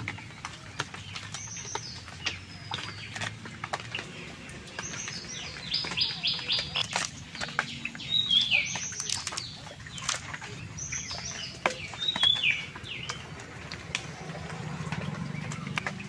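Small birds chirping in several runs of short, quick, falling notes, with scattered soft clicks and crackles from the sticky flesh of a ripe jackfruit being pulled apart by hand.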